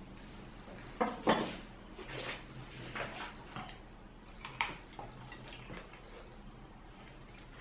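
A table knife clinking and scraping against a ceramic plate as grilled chicken is cut, a few sharp clinks spread over the first five seconds, the loudest two about a second in.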